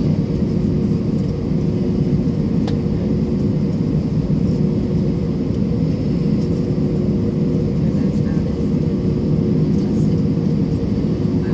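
Cabin noise inside a jet airliner on the ground with its engines running: a steady low rumble with two steady hum tones over it.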